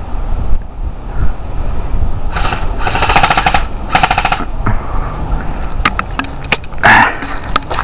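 Airsoft AK-47 rifle firing full auto in three short bursts, a fast even clatter of shots. It is followed by several separate sharp clicks and snaps.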